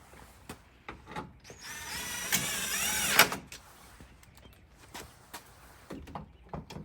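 Cordless power driver with a 7 mm socket whining for about a second and a half, rising in pitch as it drives a headlamp-housing fastener home, and ending in a sharp click. A few light clicks and knocks of handling come before and after.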